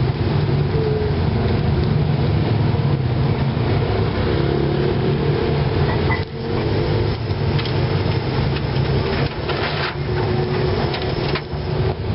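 Instant-noodle and egg omelette frying in hot oil in a nonstick pan: steady sizzling with small crackles, over a steady low rumble.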